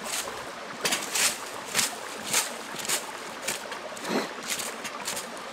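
Dry leaves rustling and scraping as a gloved hand sweeps them aside on the forest floor, in short strokes about every half second, over the steady rush of a nearby creek.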